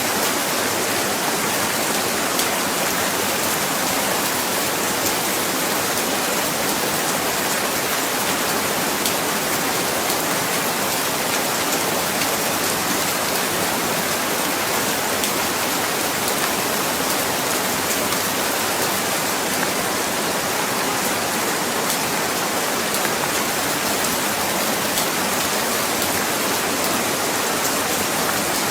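Heavy rain falling in a steady, dense hiss, with fine drop patter and no change in strength.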